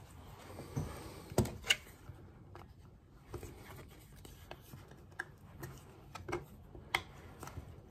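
Light rubbing and scraping with small clicks as hands work a rubber diaphragm onto a Honda Deauville NT650V carburettor piston, a thin card tucking the diaphragm's lip into its groove. A few sharper ticks stand out, two close together about a second and a half in.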